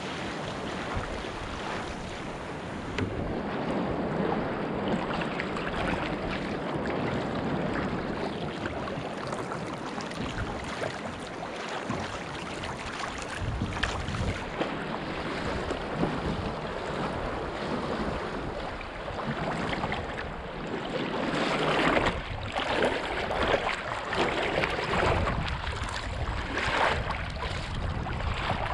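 Sea kayak moving through choppy water: a steady rush of water along the hull, splashes from the paddle strokes, and wind buffeting the microphone. The paddle splashes grow louder and come more often near the end.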